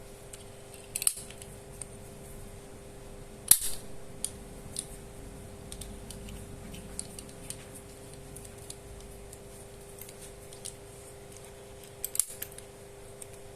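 A spring-loaded needle-free injector pen firing with sharp snaps, three in all, the loudest about three and a half seconds in, with small handling clicks between them.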